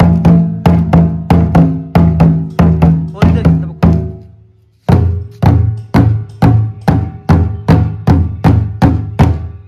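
Large leather-headed thambalam drums beaten with wooden sticks in a steady rhythm of about three strokes a second, each stroke ringing with a low boom. After a short pause about four seconds in, the playing resumes on a lower-pitched drum.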